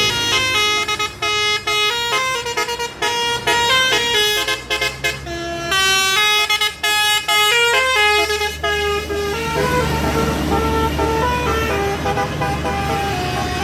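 Tourist bus's multi-tone 'telolet' air horn, a Basuri-style musical horn, playing a quick melody of stepped notes, slowing to longer notes about two-thirds of the way through, over the bus's engine running.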